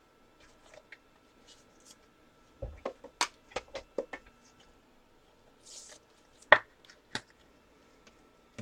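Trading cards and card packs being handled on a table: a run of light taps and clicks about three seconds in, a short soft rustle near six seconds, then two sharper clicks, the first the loudest.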